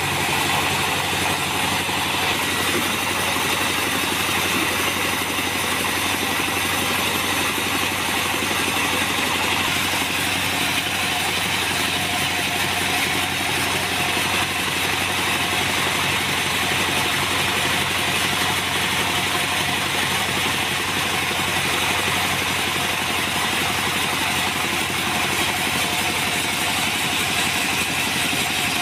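Bandsaw sawmill running steadily as it saws an acacia log: a constant, even drone with several held tones under a hiss of cutting.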